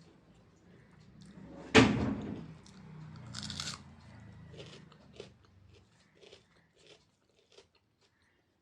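Close-up eating sounds: one loud crunchy bite about two seconds in, then chewing with small wet clicks and smacks that trail off.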